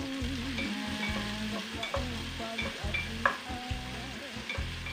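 Garlic and onion sizzling as they are sautéed in a stainless steel pan, stirred with a wooden spatula. The spatula scrapes the pan and knocks against it a few times, most sharply a little past the middle.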